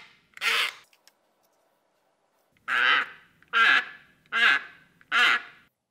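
Paper-cup "roaring cup" squawking as wet fingers are pulled along the straw fixed through its base, the straw's stick-slip vibration carried into the cup, which makes it louder. Five short quack-like rasps: one just after the start, then after a pause of nearly two seconds four more in a steady rhythm.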